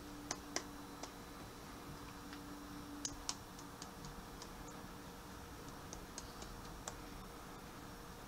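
Hand tapping a box of ground black pepper to shake pepper out. The taps come as sharp, irregular ticks in small clusters, over a faint steady hum.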